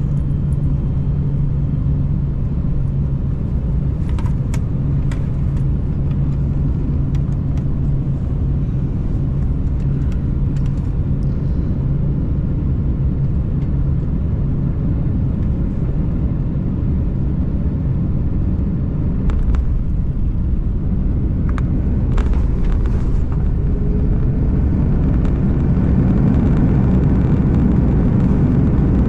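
Airbus A330-300 heard from the cabin over the wing during landing: a steady engine drone and airflow rumble, a few short knocks, then the touchdown and runway roll, with the rumble growing louder near the end as the aircraft slows on the runway.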